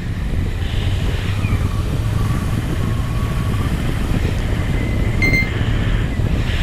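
Motorcycle engine running steadily at cruising speed on the move, with wind noise over it.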